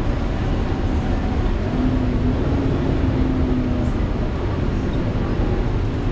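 Volvo B7TL double-decker bus heard from inside the upper deck while on the move: a steady rumble and rush of engine and road noise with the engine cooling fan hoovering over it. A wavering drone tone sits on top and fades out about four seconds in.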